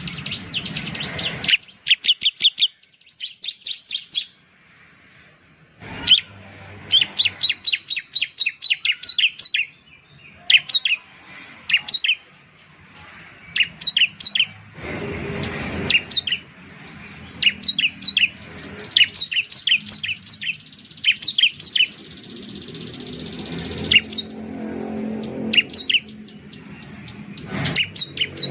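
Bar-winged prinia (ciblek) singing: repeated bouts of fast, sharp, high chirping notes, several a second, broken by short pauses.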